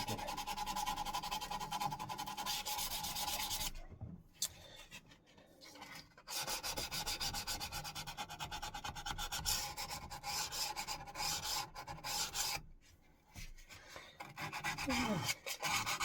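Sandpaper (180 grit) rubbed back and forth over an old axe head's steel in quick, even strokes, cleaning off the dull surface. The sanding stops briefly twice, about four and thirteen seconds in.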